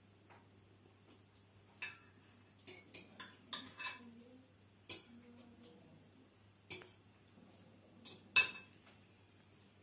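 A metal utensil clinking and tapping against a plate, a dozen or so separate sharp clicks at irregular intervals, the loudest a little after eight seconds in.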